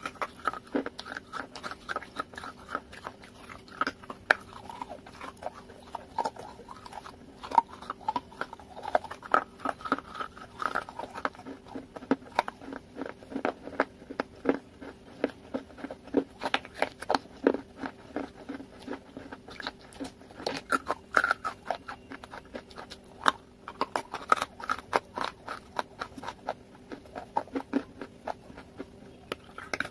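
Close-up crunching and chewing of baked clay pot pieces coated in a creamy paste, many sharp crackles in quick succession throughout, over a faint steady hum.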